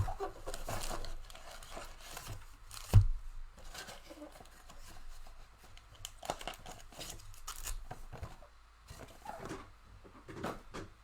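Plastic wrapping on a trading-card mega box and its packs being torn open and crinkled by hand, with scattered handling rustles and one loud knock about three seconds in.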